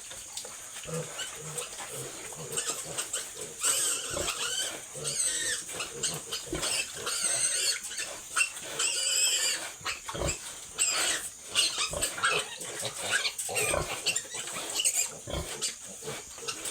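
Piglets squealing over and over in short, high, wavering cries, with a few short low grunts among them.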